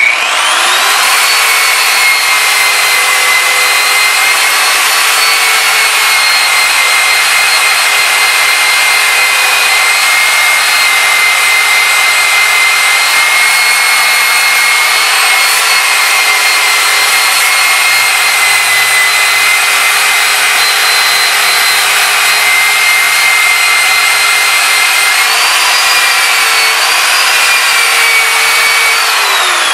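Corded angle grinder with a sanding disc running at full speed against a wooden axe handle, power sanding the wood. It makes a loud, steady whine that rises slightly in pitch a few seconds before the end, then winds down as it is switched off.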